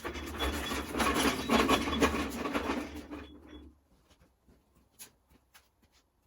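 Small milling machine being dragged across a workbench: a rough scraping rub with a low rumble for about three and a half seconds, then a few light knocks.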